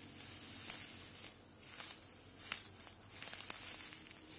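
Footsteps through dry brush and fallen leaves: rustling and crackling, with two sharp twig snaps, about a second apart and two and a half seconds in.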